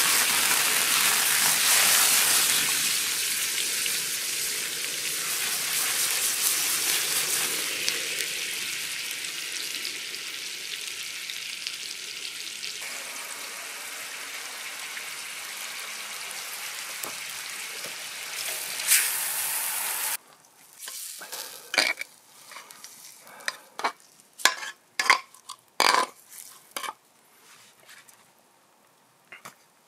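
Food sizzling hard over a charcoal fire, the sizzle slowly dying down. About two-thirds of the way through it cuts to a quieter stretch of scattered sharp clicks and knocks.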